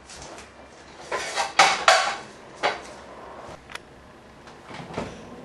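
Dishes and tableware clattering and knocking, with a cluster of the loudest knocks between about one and two and a half seconds in and a few single sharp clicks later.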